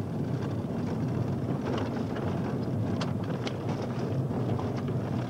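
A vehicle driving on a dirt and gravel road: steady low engine and tyre rumble, with a few short rattles or knocks.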